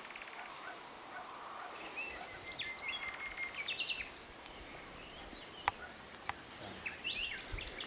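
Birds singing and calling outdoors: many short chirps and quick falling notes over a steady faint outdoor hiss, with two sharp clicks about five and a half and six seconds in.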